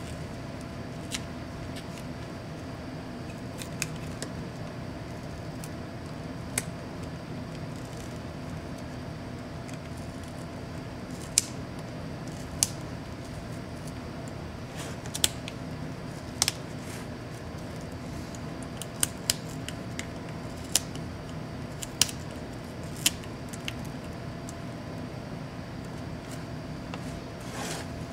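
Sharp plastic clicks, about fifteen at irregular intervals, as a laptop's plastic display bezel is pried and peeled off the LCD panel, over a steady background hum.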